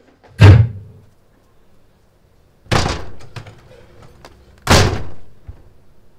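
A door slams shut about half a second in. Two more loud thuds follow, about two seconds apart, each trailing off over a second.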